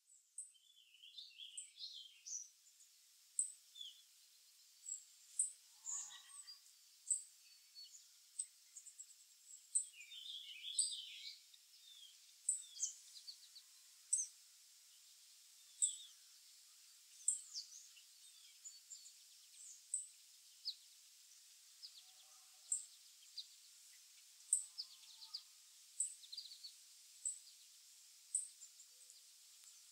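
Small songbirds calling around a seed feeder: a sharp, high chip repeated about once a second over scattered twittering calls, which are busiest in the first twelve seconds and thin out after.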